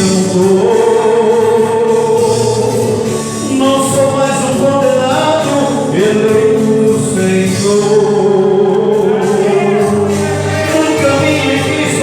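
Church worship group singing a gospel song, several voices holding long notes over steady instrumental accompaniment.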